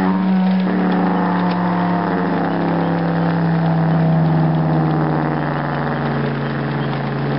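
Diesel locomotive air horn from an HO scale model locomotive's sound-decoder speaker, held as one long multi-note blast; the chord changes about a second in.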